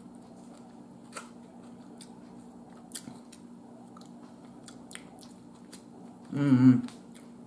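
Quiet eating: soft chewing with a few small clicks of a plastic fork against a foam takeout container, over a steady low hum. About six and a half seconds in, a brief voiced 'mm' is heard.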